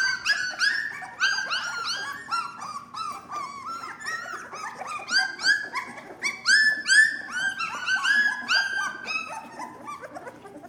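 Young Lab-mix puppies squealing and whimpering in many short, overlapping high-pitched cries, several a second, while their mother licks them clean after nursing. The crying is loudest about two-thirds of the way through and thins out near the end.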